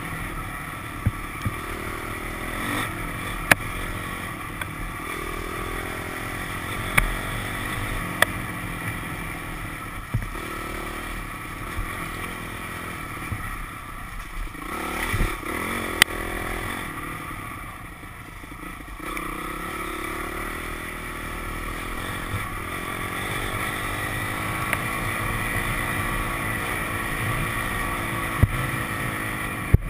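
Dirt bike engine running on a trail ride, its revs rising and falling as the throttle is worked, with occasional sharp knocks. The engine dips into a quieter lull just past halfway.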